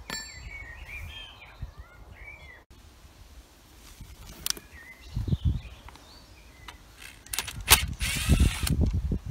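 Birds chirping for the first couple of seconds, then a few clicks and knocks of tools being handled. Near the end a cordless drill-driver clatters against the chainsaw's case and runs briefly, undoing a case screw.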